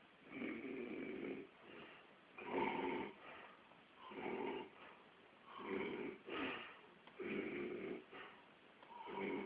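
A man snoring in his sleep: a run of about six noisy breaths, one every second and a half or so.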